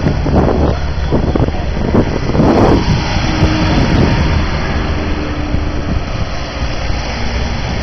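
Race-following vans and cars driving past at close range, a steady run of engine and tyre noise with wind buffeting the microphone.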